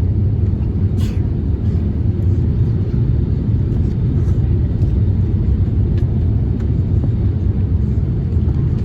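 Steady low rumble inside the cabin of an Airbus A350-1000, engine and airflow noise heard from a passenger seat, with a faint click about a second in.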